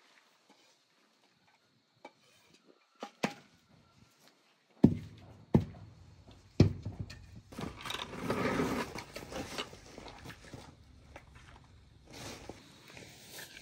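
Scattered knocks and thuds after a near-silent start, the loudest about five to seven seconds in, followed by a few seconds of rustling and clatter.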